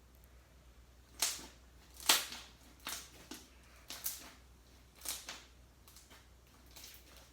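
Slime being squeezed and stretched, trapped air bubbles popping with a series of about seven sharp pops at uneven intervals, the loudest about two seconds in.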